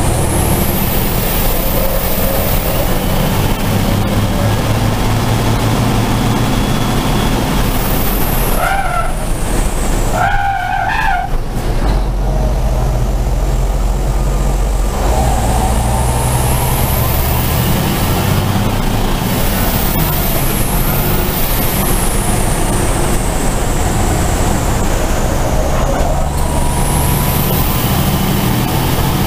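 Race truck's turbo-diesel engine running hard at racing speed, heard from inside the cab, its note rising and falling with throttle and gear changes. A brief high squeal cuts in about nine to eleven seconds in.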